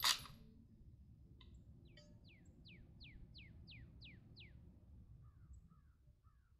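Lee-Enfield No. 4 Mk I bolt being cycled, a sharp metallic clack as it closes at the very start. Then a bird calls a quick run of about eight descending whistles, about three a second, with a few faint chirps near the end.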